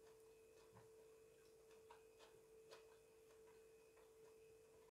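Near silence: kitchen room tone with a faint steady hum and a few soft ticks.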